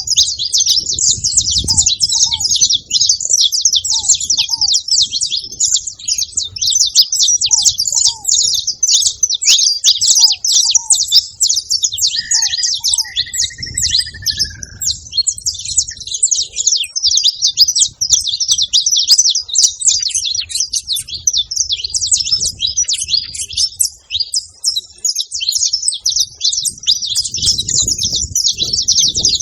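Saffron finches chirping and singing in a dense, continuous high chatter. A lower whistled call sounds briefly near the middle.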